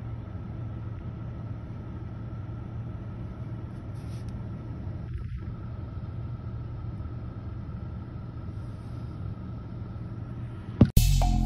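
Steady low rumble of background noise with a faint steady hum above it. Just before the end a sharp loud click cuts it off and music with a regular beat starts.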